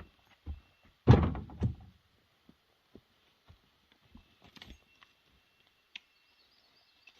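A heavy wooden thunk of firewood about a second in, with a smaller knock half a second later, then a few faint light knocks.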